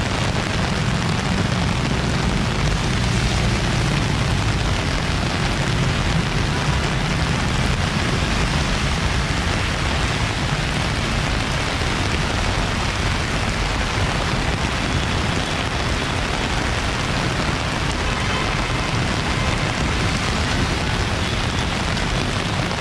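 Heavy rain falling steadily on a wet street and on an umbrella overhead, with a low rumble of passing road traffic underneath.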